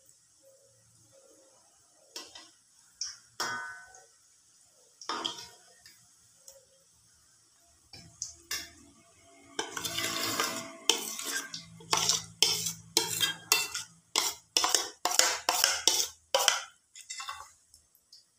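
Metal spoon clinking and scraping against a steel mixing bowl while batter is scooped out for frying. A few scattered knocks come first, then from about halfway through a quick run of clinks, two or three a second.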